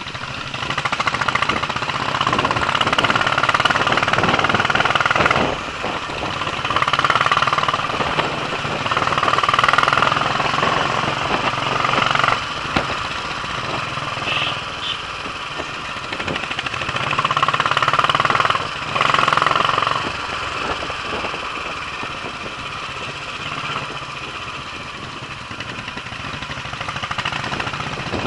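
Royal Enfield single-cylinder motorcycle engine running as the bike is ridden downhill on a rough mountain road, heard from on the bike; the sound swells louder and eases off several times.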